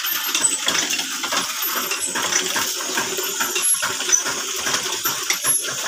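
Construction tools being washed with water: many irregular metal clinks and knocks over a steady wash of running water.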